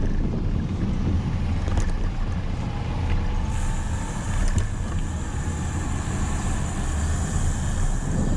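Steady low rumble of wind buffeting the microphone, with road traffic in the background. A faint high thin tone joins about three and a half seconds in.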